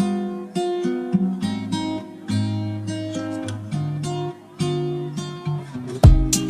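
Background music: plucked acoustic guitar playing a melody of held notes. Near the end, a loud beat with deep bass comes in.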